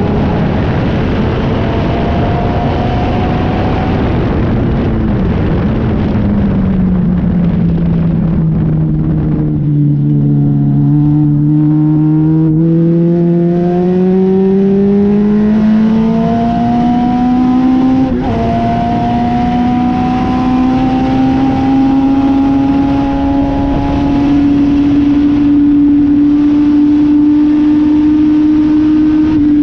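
Legend race car's Yamaha four-cylinder motorcycle engine heard from inside the open cockpit, over wind and road noise. The revs fall about five seconds in, stay low for several seconds, then climb steadily, with a short break about eighteen seconds in, and hold high until they dip right at the end.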